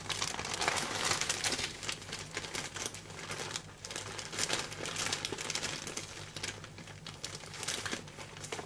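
Rummaging by hand: continuous rustling and crinkling with many small clicks and light knocks, as things are searched through for a yarn label, over a faint low hum.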